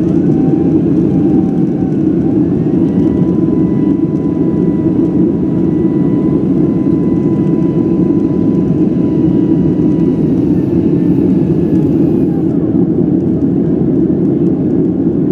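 Steady cabin rumble of a Boeing 767-300's jet engines and airflow, heard from inside the cabin, with a faint engine whine. The whine rises about two seconds in, holds steady, then falls away about ten to twelve seconds in.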